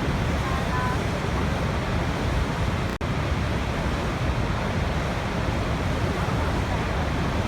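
Waterfall rushing, a steady even roar of falling water, with a brief dropout about three seconds in.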